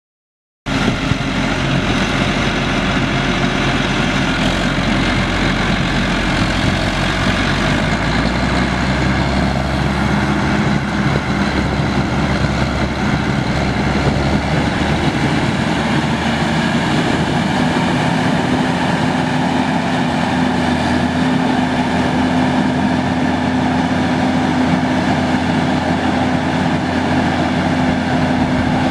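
John Deere 9520 4WD tractor's 12.5-litre six-cylinder diesel engine running steadily, its deep note shifting slightly now and then.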